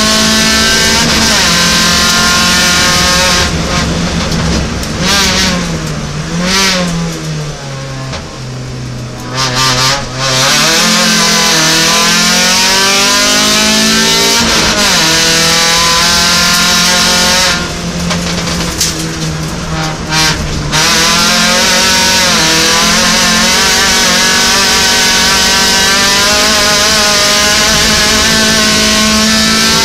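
Opel Kadett GSi's four-cylinder engine at racing revs, heard from inside the cabin. Twice it lifts off, about four seconds in and again near eighteen seconds, the pitch falling for a bend before it climbs back to full revs.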